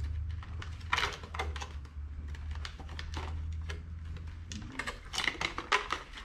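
Quick light clicks and taps of small objects being handled and set down on a table, over a low steady hum that stops about four and a half seconds in.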